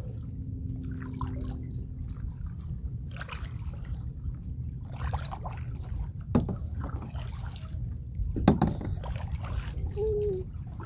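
Kayak paddle strokes: the blades dip and pull through the water, with dripping and trickling off the paddle. There are several separate splashes a second or two apart, the loudest about eight and a half seconds in, over a steady low rumble.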